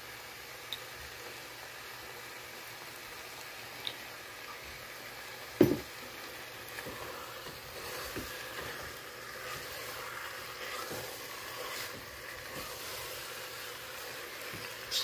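Chicken pieces frying with a quiet sizzle in oil in a pressure cooker pot as a silicone spatula stirs them with chopped garlic and onion. There is a sharp knock against the pot about five and a half seconds in.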